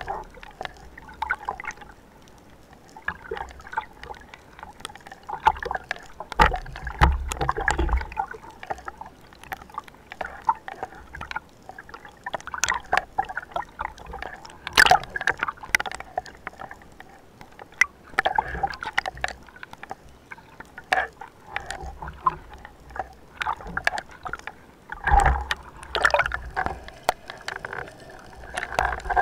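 Sea water sloshing and gurgling around an underwater camera held at the surface, with irregular splashes and sharp clicks. The sound surges louder a few times, about six to eight seconds in, around fifteen seconds and again about twenty-five seconds in.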